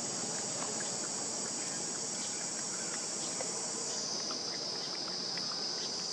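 Outdoor insect chorus: a steady high-pitched drone that drops slightly in pitch about four seconds in, with scattered faint clicks beneath it.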